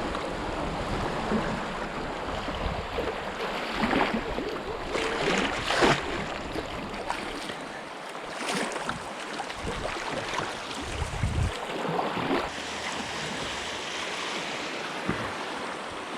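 Fast river current rushing around a kayak: a steady wash of moving water with splashes here and there, and wind buffeting the microphone at times.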